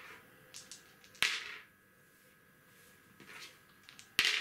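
Wooden backgammon board: a checker set down with one sharp click a little over a second in, then near the end a pair of dice thrown onto the wooden board, landing with a loud clack and rattling briefly.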